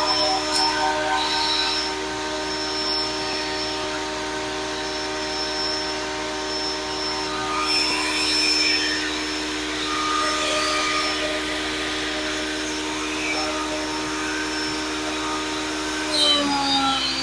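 Grizzly G0958 8-inch jointer/planer combo running steadily with a constant motor and cutterhead whine. Near the end its pitch drops slightly and it gets louder.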